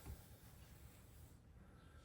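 Near silence: room tone with a faint low hum and one soft knock just after the start.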